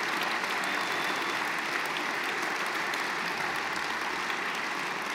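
Large audience applauding steadily in a big hall, many hands clapping at once and easing slightly toward the end.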